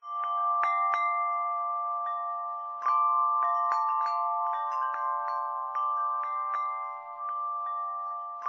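Chimes ringing: light struck metal tones at irregular times over a steady ring of overlapping held tones, with a louder cluster of strikes about three seconds in.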